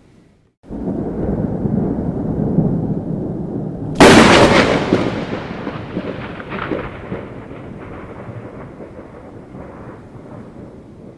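Thunder during a heavy rainstorm: a low rumble builds about a second in, then a sharp close crack about four seconds in is the loudest moment and rolls away slowly, with rain hissing steadily underneath.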